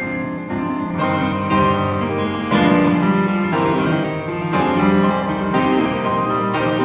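Instrumental background music with a keyboard melody, notes changing about every half second.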